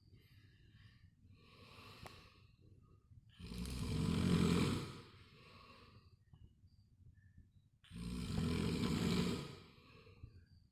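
A person snoring heavily: two loud snores about four and a half seconds apart, each lasting about a second and a half, with faint breathing between.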